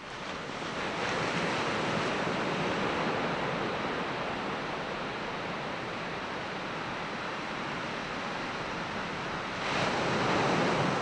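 Ocean surf washing steadily, swelling louder near the end as a wave comes in.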